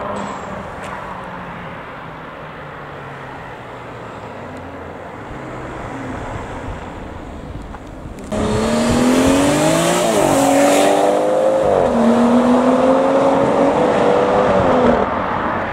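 A car engine running faintly, then about eight seconds in a much louder car engine revving, its pitch rising and falling, with tyre screech as the car spins in a donut. The revving cuts off shortly before the end.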